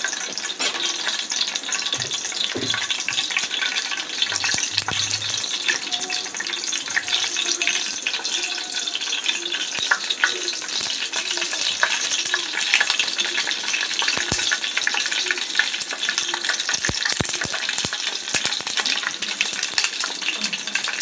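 Mustard seeds frying in hot oil in a pan: a steady sizzle with many small crackling pops as the seeds splutter.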